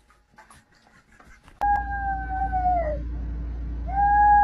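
A dog howling: one long howl that slides slowly down in pitch and breaks off, then a second, steady howl starting near the end, over a steady low hum.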